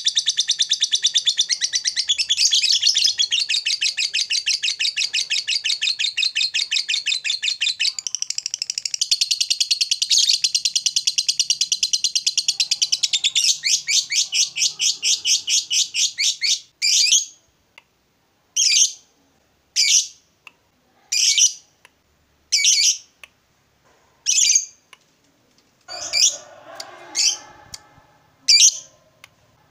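Lovebird giving a long ngekek: a fast, unbroken chattering trill of shrill notes that runs for more than half the time, then breaks into single short chirps about every second and a half.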